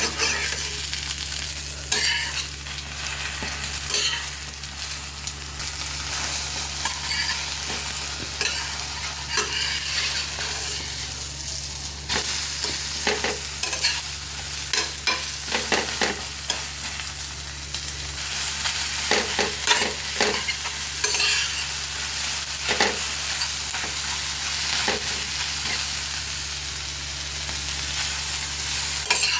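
Food frying and sizzling steadily in a hot pan, with frequent short clicks and scrapes of a spatula against the pan.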